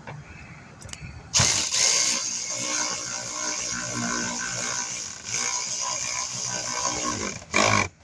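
A power tool running a bolt in for about six seconds, then a short second burst near the end as the fastener is snugged down.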